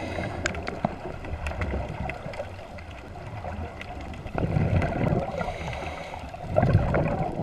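Scuba diver's exhaled bubbles gurgling, recorded underwater: a muffled low rumble that swells twice, about four and a half and six and a half seconds in.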